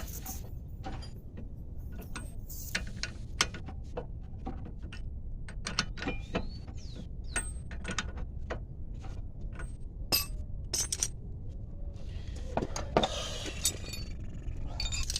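Ratchet wrench clicking in irregular runs as the 32 mm CV axle nut is run down and snugged, with occasional metal clinks.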